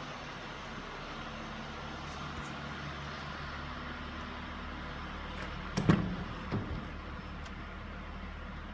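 A 2003 Honda Pilot's door being opened: a sharp latch clunk about six seconds in, then a smaller knock as the door swings out, over a steady low hum.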